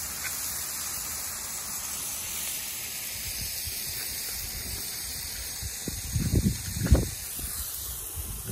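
Smash burger patties sizzling on a Blackstone flat-top griddle: a steady hiss. A few dull low thumps and rumbles come about six to seven seconds in and are the loudest sound.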